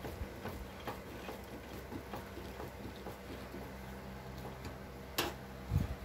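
Faint scattered ticks and light taps of metal parts being handled on a gas water heater's valve assembly, with a sharp click about five seconds in and a dull knock just before the end.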